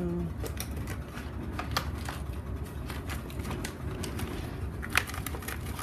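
Scattered light clicks and knocks of metal cans and small items being moved about on a shelf during rummaging, over a steady low hum.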